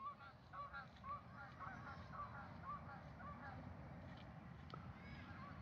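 A flock of waterfowl calling: many short honking calls in quick succession, thinning out after about three seconds, over a low outdoor rumble.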